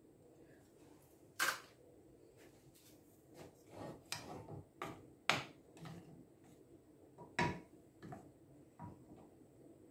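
A spoon stirring hard, unmelted dark chocolate pieces in a saucepan, with the chunks and the spoon knocking against the pot. There are several sharp clacks, the loudest three about a second and a half, five and seven and a half seconds in, with scraping between. The burner under the pot has not yet been lit, so the chocolate is still solid.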